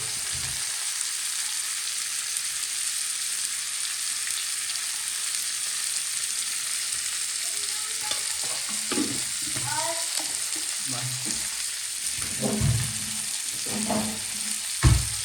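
Onion and spices sizzling steadily in hot oil in a pan as they are stirred, with a few low knocks of the stirring spoon against the pan in the last few seconds.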